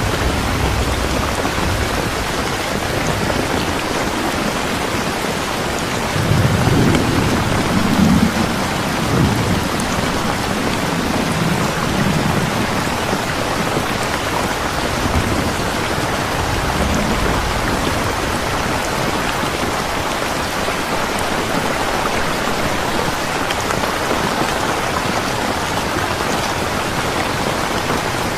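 Steady rain falling. Low thunder rumbles through it from about six seconds in, strongest for several seconds and then fading in smaller rolls.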